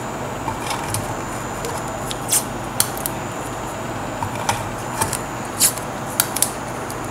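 Electrical tape being torn and pressed onto an LED chip by hand: scattered short crackles and clicks over a steady background hiss.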